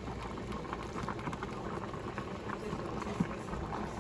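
A pot of water with macaroni noodles bubbling as it comes to the boil, a steady crackle of small bubbles.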